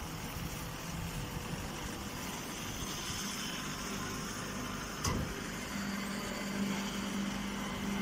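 Straw baling machinery running with a steady mechanical hum; a single sharp click sounds about five seconds in, and the hum grows stronger about six seconds in.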